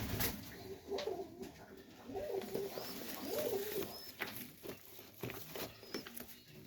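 Highflyer pigeons cooing in a loft: a few low, warbling coos, with faint short high squeaks and scattered taps in between.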